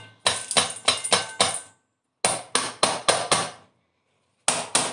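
Metal mesh strainer tapped repeatedly against a stainless steel bowl to knock the rinsed, wet seeds out of it. The sharp taps come about five a second, in three quick runs with short pauses between.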